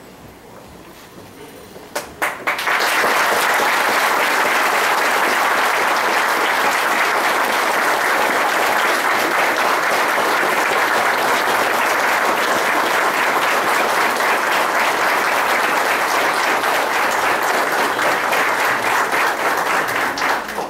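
Audience applauding: a few scattered claps about two seconds in, then sustained, steady applause that dies away near the end.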